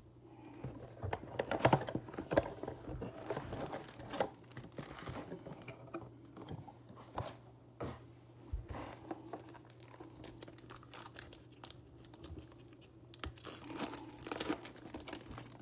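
Foil trading-card pack wrappers crinkling as packs are pulled from a blaster box and handled, with a burst of crackling a couple of seconds in, then a pack torn open near the end. A steady low hum runs underneath.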